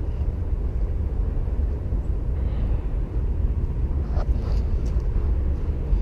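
Wind rumbling on the microphone outdoors: a steady low rumble. A few faint knocks come about four seconds in.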